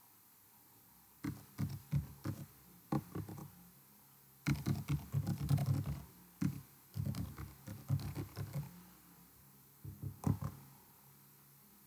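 Computer keyboard typing in irregular bursts of quick keystrokes with short pauses between them, and a brief last cluster of taps near the end.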